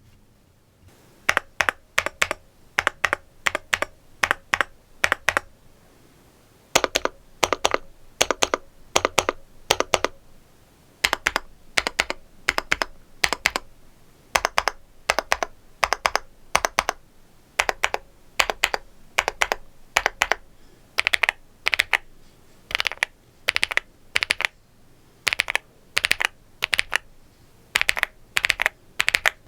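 Typing test on a stock EPOMAKER x Feker Galaxy80 TKL mechanical keyboard with a full aluminium case and factory-lubed Marble White linear switches: quick runs of key clacks with a brief pause early on. The reviewer judges the sound a bit scratchy, with some rattly stabilizers.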